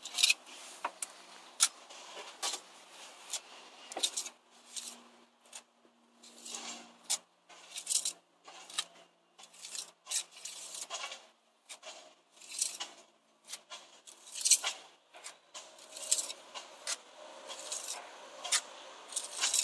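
Steel pointing tool scraping and rubbing along fresh mortar joints in a brick wall, in short, irregular strokes.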